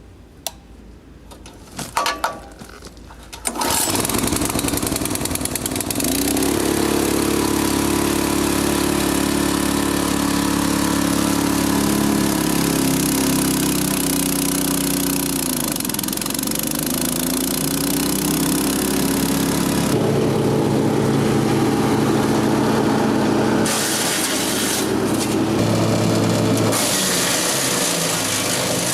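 A few clicks, then the wood chipper's 7 hp 208cc four-stroke petrol engine starts on its electric starter about three seconds in and keeps running steadily. About halfway through its pitch dips briefly and recovers, and it shifts again near the end.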